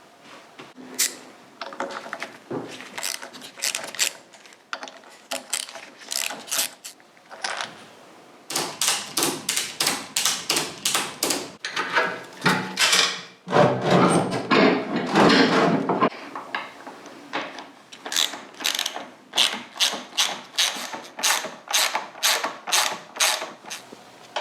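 Ratchet spanner being worked back and forth, a steady run of ratcheting clicks with a louder, faster stretch about halfway through.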